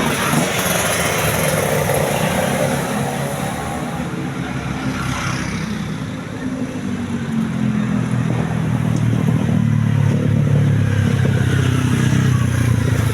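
Road traffic: vehicle engines passing in the first few seconds, then a heavy bus engine's low hum builds and grows louder from about halfway in as it comes close.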